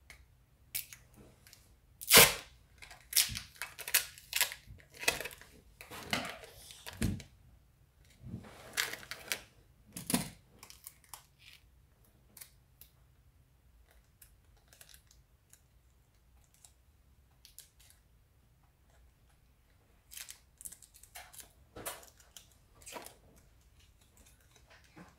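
Clear packing tape being pulled off its roll and torn, a quick run of sharp rips and crackles that is loudest about two seconds in and stops about ten seconds in. Near the end, softer crinkles of a small torn-off piece of tape being handled between the fingers.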